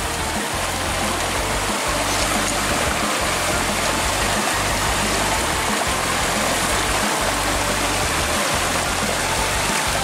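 Shallow mountain stream rushing steadily over rocks and boulders. Background music with a low bass line plays over it, pulsing about once every second and a half.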